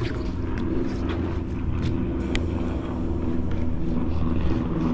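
A motor running steadily with a low hum, with a few light clicks over it.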